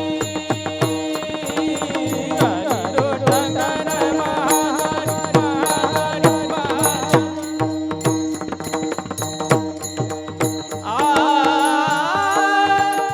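Indian devotional kirtan music: a steady held drone under a melody that bends in pitch, with regular hand-drum strokes throughout.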